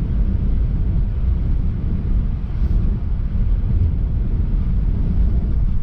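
Car driving, heard from inside the cabin: steady, deep road and engine noise.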